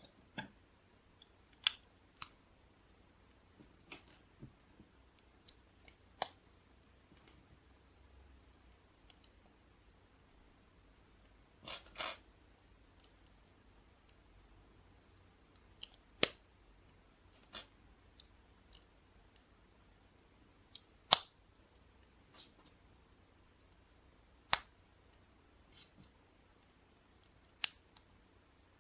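LEGO bricks being handled and snapped together: irregular sharp plastic clicks at uneven intervals, with a short rattling cluster about twelve seconds in.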